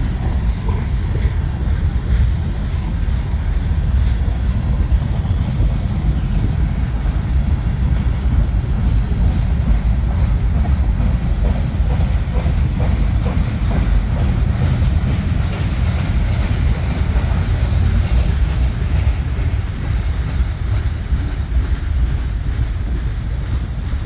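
CN freight train cars rolling past on the rails: a steady, loud, low rumble with faint clicking of wheels over the track.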